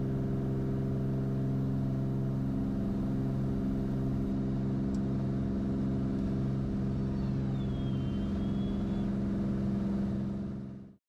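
Beechcraft Bonanza's six-cylinder piston engine and propeller running steadily at full takeoff power during the takeoff roll. The sound fades out near the end.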